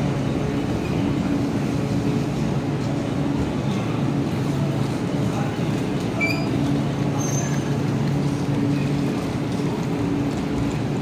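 JR West 221 series electric train rolling slowly along the platform and coming to a stop, then standing with a steady low hum.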